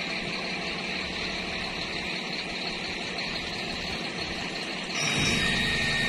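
Fire truck engine running steadily to power its aerial ladder platform. About five seconds in it gets louder, and a steady high whine comes in as the boom works.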